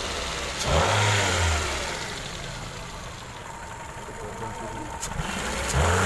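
Four-cylinder car engine running on petrol, revved with a quick blip of the throttle about a second in and again near the end, easing back to idle between. With new spark plugs fitted, its misfire on petrol is almost gone.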